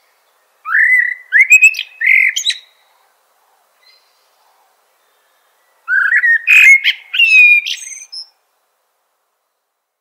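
Northern mockingbird singing: two bursts of quick, varied notes, each about two seconds long, with a pause of about three seconds between them.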